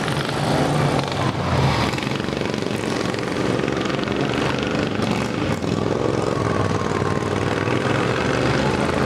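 Racing lawn mowers running flat out around a dirt track: a loud, steady engine drone whose pitch rises and falls as the mowers accelerate and back off.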